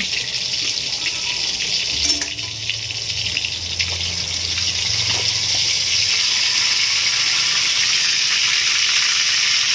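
Tilapia deep-frying in hot oil: a steady sizzle, with a single knock about two seconds in.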